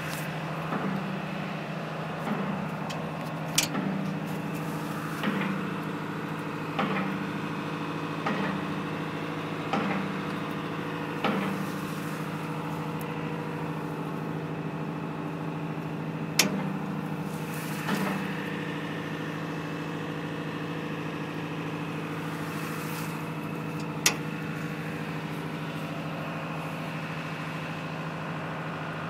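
Docked ship's engine idling with a steady low drone. Soft thumps come about every second and a half through the first half, and a single sharp click comes later.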